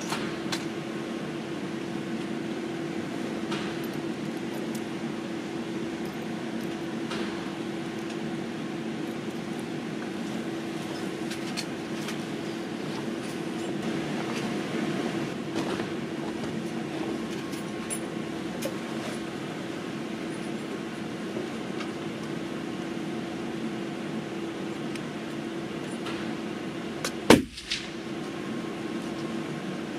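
A steady low hum with a few faint scattered clicks. About 27 s in comes a single sharp, loud report: a shot from a .22 LR rifle, the Pedersoli Black Widow, fired with RWS 40-grain match ammunition.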